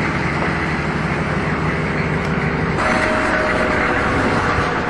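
Steady engine rumble and running noise of a large vehicle, its tone changing about three seconds in.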